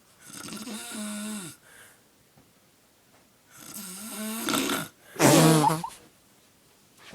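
A person snoring loudly: three snores with a droning pitch and quiet pauses between them, the third, about five seconds in, the loudest.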